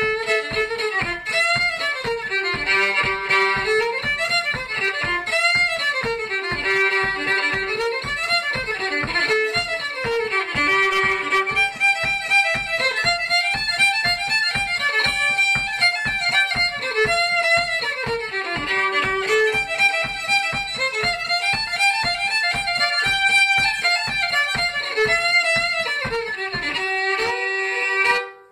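Solo fiddle playing a lively tune in quick, even bow strokes, the same phrase coming round again and again. The playing stops suddenly near the end.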